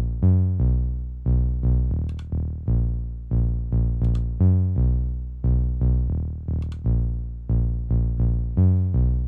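A deep bass line played back on its own: a run of low, pitched notes, each struck and fading, about two a second, with the pitch moving from note to note. A few faint clicks sound over it.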